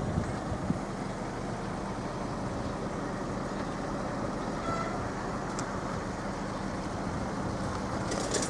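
Steady road traffic noise, with a faint low hum running under it.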